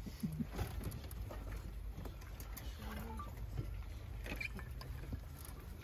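Faint, distant voices murmuring over a low steady rumble, with a few light clicks.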